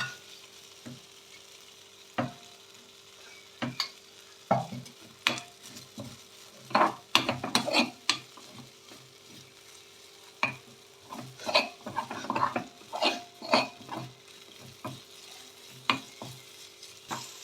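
Ginger frying in ghee in a pan while being stirred: irregular scrapes and knocks of the stirring utensil against the pan over a light sizzle, as the ginger is roasted to cook off its raw taste.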